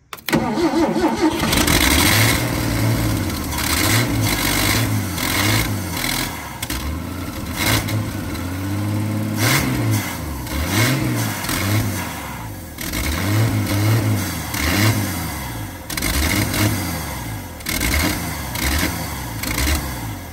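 A 1980 Ford 300 inline-six engine catches and runs on carb cleaner sprayed into the carburettor, its revs rising and falling over and over as the spray is fed. It is a long-dormant engine running rough but healthy; a faint ticking is heard, which the owner takes for a small exhaust leak or valve-train noise coming back through the carb.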